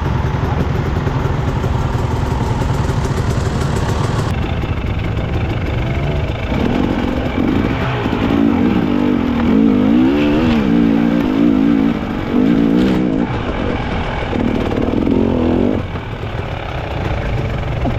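Enduro dirt bike engines running. From about six seconds in, one bike revs up and down over and over for about ten seconds, its pitch rising and falling as it works off-road.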